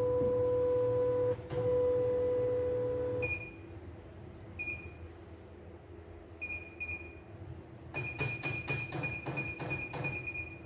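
CNY E900 computerized embroidery machine sounding two long, steady tones over the first three seconds. Short high beeps follow as its control-panel keys are pressed, a few spaced apart and then a quick run of them near the end.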